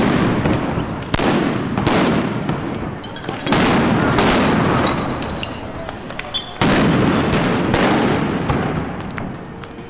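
A series of about seven loud explosive bangs at irregular intervals, each trailing off in a long echo, from blasts in a street clash between protesters and riot police. It grows quieter near the end.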